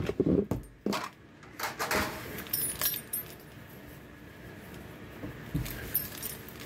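A cloth rubbing over a desk top as it is wiped down, with keys on a lanyard jangling. A few light knocks and clatters come in the first couple of seconds, then a soft steady rubbing.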